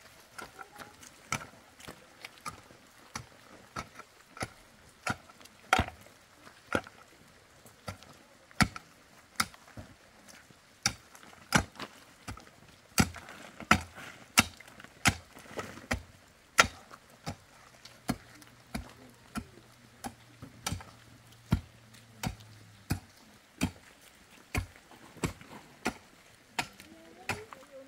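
Pickaxe striking hard, stony earth in a steady rhythm of about one blow a second.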